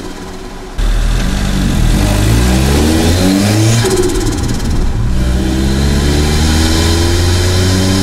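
Turbocharged Mitsubishi Mirage engine, a Garrett T25 with no blow-off valve, accelerating hard: it gets suddenly louder just under a second in, the pitch climbs steadily, drops briefly near five seconds as for a gear change, then climbs again.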